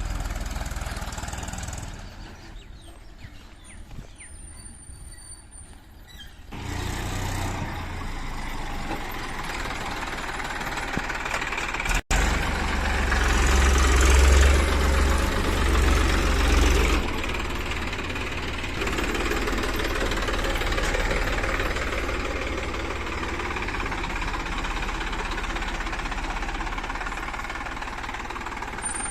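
Engine running steadily in several cut segments. It is quieter from a couple of seconds in, louder again after about six seconds, and loudest with a heavy low rumble just after a sharp cut about twelve seconds in.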